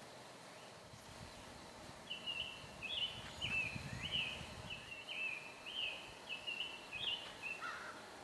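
A songbird singing a run of short chirping phrases, about two a second, starting about two seconds in and ending near the end.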